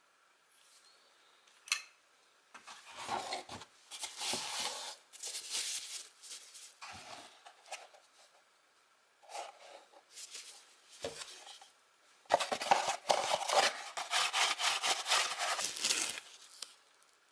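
Packaging being handled: rubbing and scraping noises in bursts, with a sharp click about two seconds in and a long run of dense, crackling scrapes in the last five seconds.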